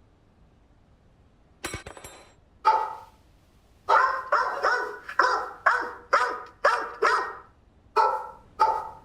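A short clatter, then a dog barking repeatedly, about ten short barks, most of them in a quick run near the middle.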